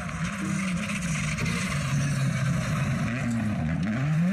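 Škoda Fabia rally car engine revving hard on a gravel stage. Its pitch dips and climbs back up twice as the driver lifts off and accelerates again.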